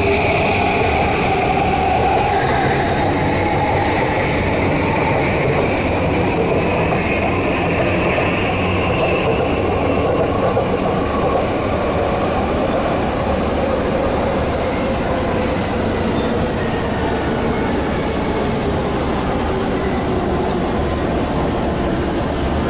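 Electric train running past, a steady train noise with several whining tones that slowly fall in pitch.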